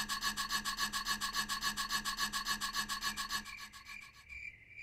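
Small hand file scraping back and forth in a slot in a stainless steel plate, in quick even strokes, several a second, with a faint ringing tone pulsing along with each stroke. The strokes fade out about three and a half seconds in.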